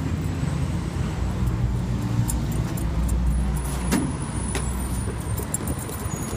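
A road vehicle's engine running, a steady low rumble, with a couple of sharp clicks about four seconds in.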